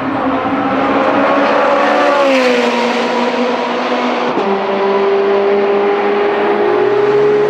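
Ferrari 430 Scuderia's 4.3-litre V8 running hard and loud on track. Its pitch falls about two seconds in, changes abruptly just after four seconds in, then slowly rises.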